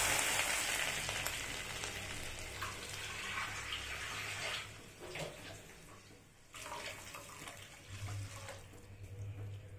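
Water poured from a bowl into a hot kadai of butter-sautéed vegetables, splashing into the pan with a sizzle that dies away over the first four seconds or so. A second, quieter pour follows near the end.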